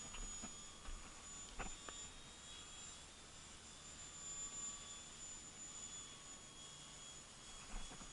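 Faint, thin high whine of the Art-Tech Texan T-6 RC plane's electric motor and propeller flying at a distance, slightly wavering in pitch, with a few faint clicks.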